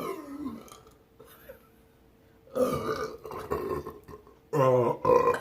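A person belching loudly after chugging fizzy Diet Coke, one long rough burp starting about two and a half seconds in and lasting over a second.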